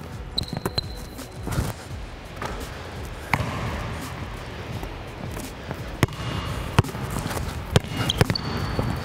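Basketball dribbled hard on a hardwood gym floor, sharp bounces at irregular intervals during a full-speed dribble move. Two brief high sneaker squeaks on the court, one just after the start and one near the end.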